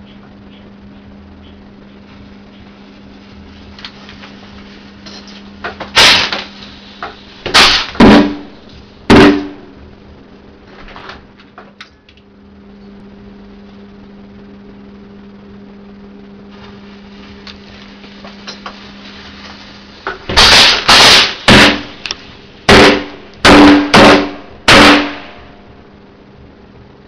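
Firecrackers set into ballistics-gel heads going off: four sharp, very loud bangs about six seconds in, then a rapid string of about eight more from about twenty seconds in.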